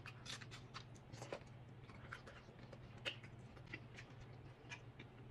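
Faint crunching and chewing of a crispy fried corn-tortilla taco: irregular crisp crackles, several a second, over a low steady hum.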